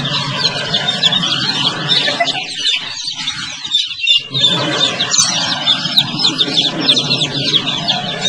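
Many baby chicks peeping at once, a dense, continuous chorus of short high cheeps, over a steady low background noise.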